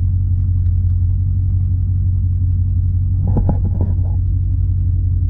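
A steady, loud, deep rumble fills the car's cabin without a beat or change. A faint voice comes in briefly about three seconds in.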